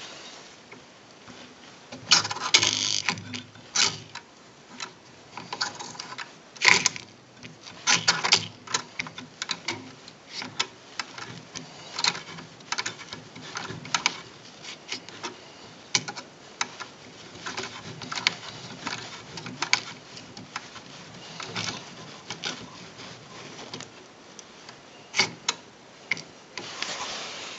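1930s Smith Premier portable manual typewriter being worked by hand: irregular mechanical clicks and clacks from its keys and moving parts, busiest in the first third.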